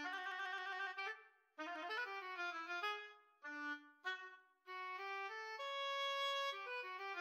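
MIDI-rendered solo oboe playing an atonal melody in short phrases broken by brief rests, with a quick run of notes and a long held note near the end.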